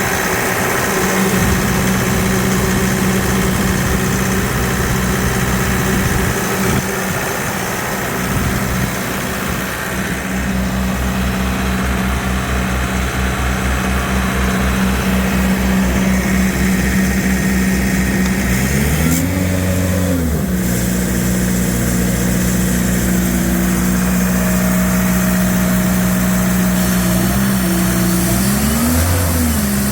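Sullivan 210Q portable air compressor's John Deere 4024T 2.4-litre turbo diesel engine running steadily. Its pitch rises and falls briefly twice, about two-thirds in and again near the end.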